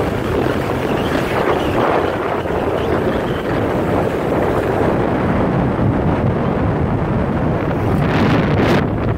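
Wind rushing over the microphone of a moving motor scooter: a loud, steady roar of wind and road noise, with a brief louder, hissier rush near the end.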